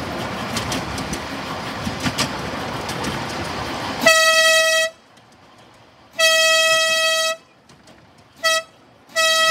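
Miniature railway train running along the track for about four seconds, with sharp clicks from the wheels on the rails. Then the locomotive's horn gives four toots at one steady pitch: a short one, a longer one, a very brief one and another short one, with near quiet between.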